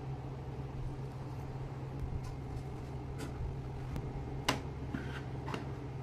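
Light clicks and knocks of an old electric switch board being picked up and handled in gloved hands, the sharpest about four and a half seconds in and another a second later, over a steady low background hum.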